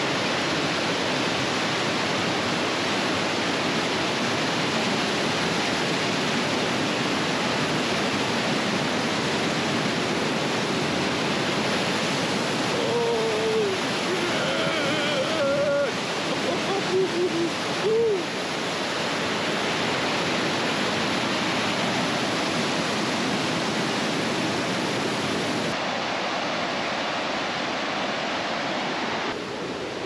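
Whitewater of the Nisqually River rushing over rocks under a log footbridge, a steady loud rush. About halfway through, a man's voice calls out briefly over it, and near the end the rush becomes a little quieter.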